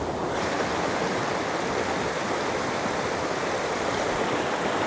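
Rushing mountain stream: a steady rush of water tumbling over rocky rapids.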